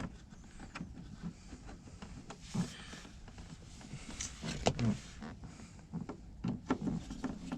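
Light clicks and scraping of screws being driven by hand to fasten a new speaker into a car door panel.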